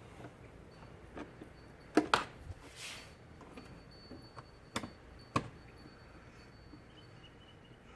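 A few sharp knocks and clicks: two close together about two seconds in and two more about five seconds in, with a brief rustle in between.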